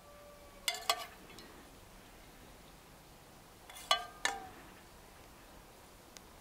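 Metal spoon clinking against an enamel pot: two quick clinks about a second in and two more near four seconds, each ringing briefly.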